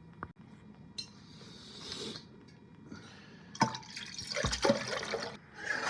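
Water being poured into a kettle in two spells: a softer hiss about a second in, then a louder one with a couple of knocks from the kettle being handled.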